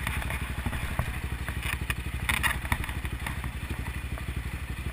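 Suzuki DR650's single-cylinder four-stroke engine idling with an even, steady beat, with a few scattered clicks and clatter over it.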